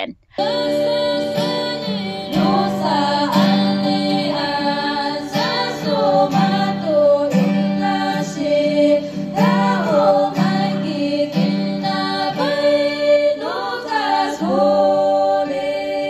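Three women singing a song together into microphones, accompanied by a strummed and picked acoustic guitar. The music starts a moment in, after a brief cut, and carries on steadily.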